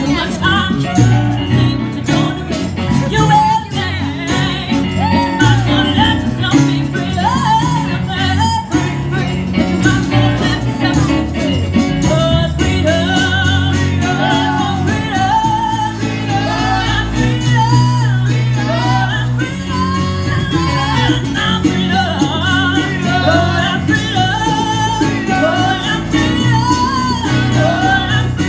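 Live acoustic band music: a woman singing into a microphone, her sustained notes wavering with vibrato, over a strummed banjo and keyboard, with a steady percussive beat.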